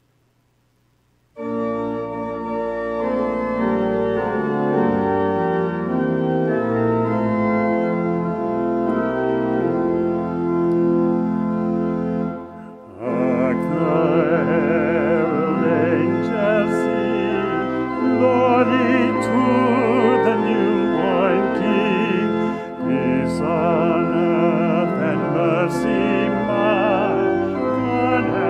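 Church organ comes in after about a second of silence, playing sustained chords as an introduction. About 13 seconds in, after a brief drop in level, a singer with a strong vibrato joins, singing over the organ.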